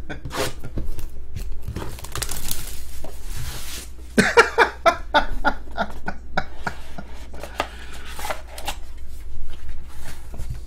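Plastic shrink wrap being torn and crinkled off a cardboard trading-card box, among clicks and knocks as the box is handled and its lid opened.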